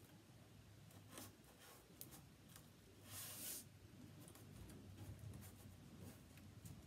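Faint handling sounds of plastic window screen being pressed and stretched onto a picture frame while hot-gluing: light scratchy rustles and small clicks, with one louder brief rustle about three seconds in.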